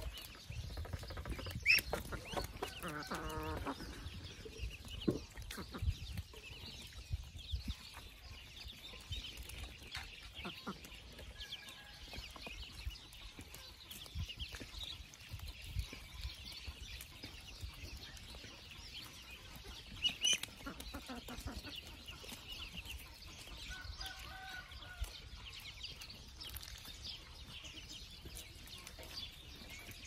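A flock of ducklings peeping in a constant high chatter while chickens cluck among them, with a longer drawn-out hen call about three seconds in. Scattered sharp clicks are mixed in.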